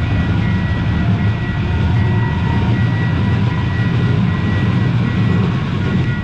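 Light-rail train running: a loud, steady low rumble with thin, steady high electric whines over it.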